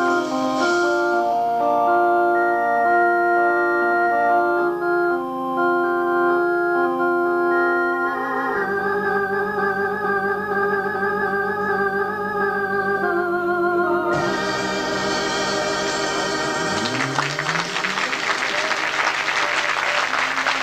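Live prog-rock organ and keyboard chords, ending on a long held chord with vibrato, on an amateur concert tape. About two-thirds of the way through, audience applause breaks in over the music, with a low sliding note rising beneath it.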